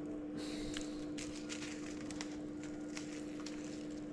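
Soft rustles and small ticks of hands stuffing thyme sprigs into a whiting on a paper-lined baking tray, over a steady low hum.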